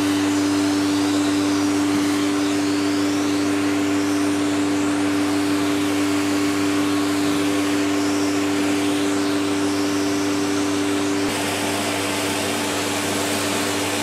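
Vacuum cleaner running steadily, a hum over a rushing hiss of air drawn in through the open end of its plain tube wand. The sound drops slightly about eleven seconds in.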